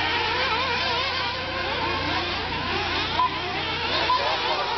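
Several nitro-powered 1/8-scale RC buggies racing at once: overlapping high-pitched engine buzzes whose pitch keeps rising and falling as the cars accelerate and back off.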